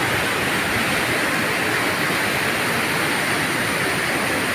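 Steady rush of a plunge waterfall: water falling freely and crashing into the pool below, an even, unbroken noise.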